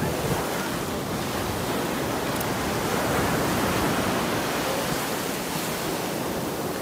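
Small waves breaking and washing up a sandy beach: a steady rush of surf that swells a little midway.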